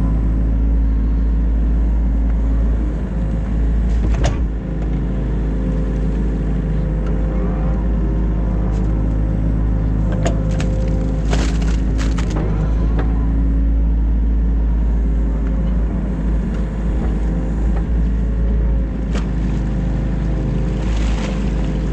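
Diesel engine of a New Holland Kobelco E50.2 excavator running steadily under working load, with a few sharp knocks scattered through.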